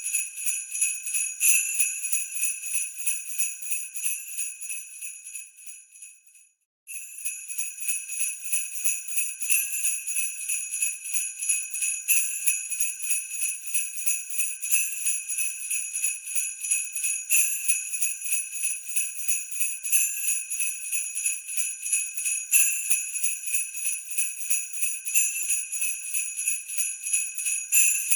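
Sleigh bells shaken in a steady, rapid jingle, with a stronger accent about every two and a half seconds. About six seconds in, the jingling fades to a brief silence, then starts again abruptly.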